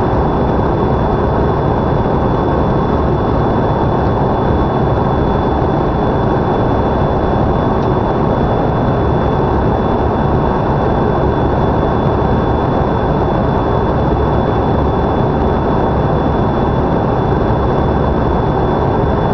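Cabin noise inside a Canadair CRJ regional jet in flight: a steady, loud rush of airflow and its rear-mounted turbofan engines, with a faint steady high whine over it.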